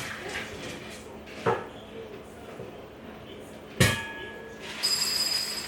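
Dishes being handled: a knock about a second and a half in, then a sharp clink with a short ring nearly four seconds in, followed by high ringing clatter near the end.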